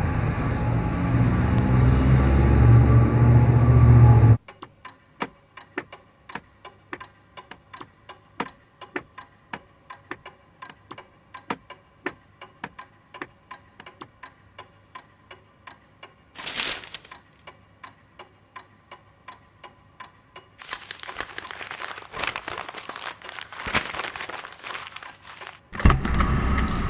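Film sound design: a loud traffic rumble swells and cuts off sharply after about four seconds, giving way to a clock ticking evenly about twice a second with one short hiss midway. Near the end a hiss of noise rises and a loud rumble comes back.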